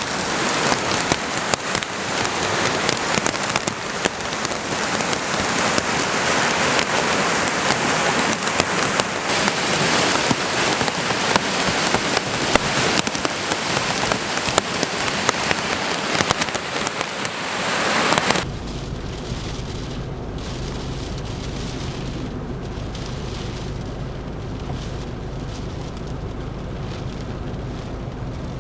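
Heavy rain pouring down and pattering hard on surfaces, dense and steady. About eighteen seconds in it cuts off abruptly to a quieter, steady low rumble.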